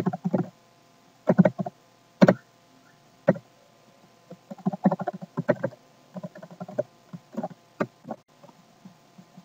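Typing on a computer keyboard: muffled keystrokes in irregular clusters, with a few sharper single clicks.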